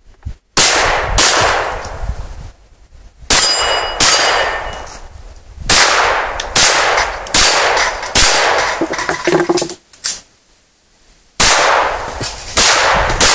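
STI 2011 pistol firing quick strings of shots with short pauses between them, steel reactive targets clanging and ringing when hit.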